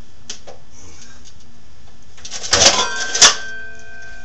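Metal parts of an old Craftsman radial arm saw clanking as its arm and motor head are pulled loose and set down on concrete: a cluster of clanks a little past halfway, the loudest last, followed by a lingering metallic ring.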